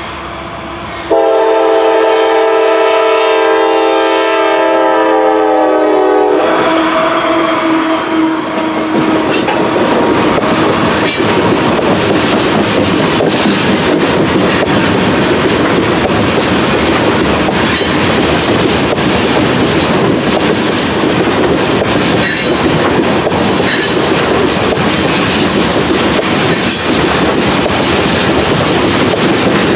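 Norfolk Southern freight locomotive sounding its multi-chime air horn in one long blast that starts about a second in and lasts about five seconds. The train then rolls past: the locomotives, then a long string of tank cars, with steel wheels clattering over the rail joints.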